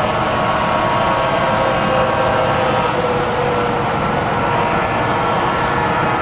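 Model railroad diesel locomotives running past on the layout: a steady mechanical drone with several held tones, one dipping slightly in pitch about halfway through.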